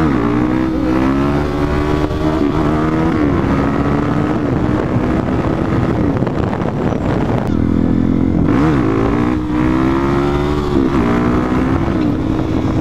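Suzuki DR-Z400SM's single-cylinder four-stroke engine pulling through the gears, its revs rising and dropping back at each shift. About six seconds in the throttle eases off briefly before the engine picks up and climbs again.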